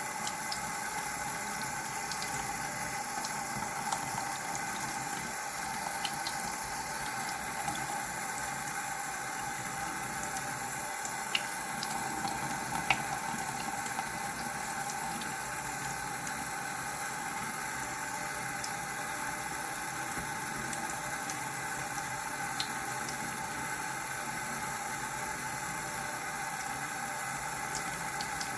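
Water running steadily from a tap, with a few faint clicks about 11 and 13 seconds in.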